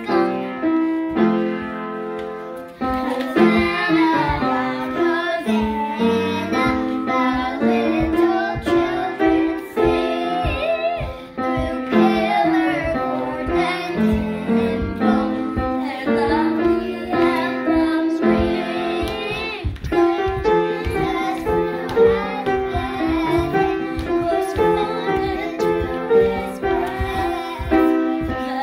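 Children singing a song with piano accompaniment and a steady beat.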